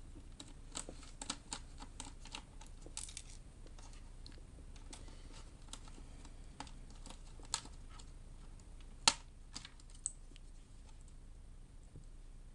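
Scattered small clicks and taps from hands and tools working on an HP 630 laptop during disassembly, busiest in the first few seconds, with one sharp, louder click about nine seconds in.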